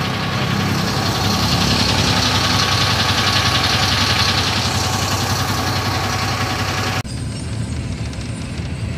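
Bus engine running steadily, with a hiss over a low drone; the sound changes abruptly about seven seconds in, to a duller running noise.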